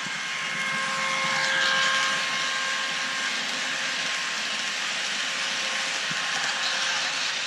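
Model TGV PSE train running past on a model railway, a steady hissing run with a few faint steady whining tones, growing louder about two seconds in.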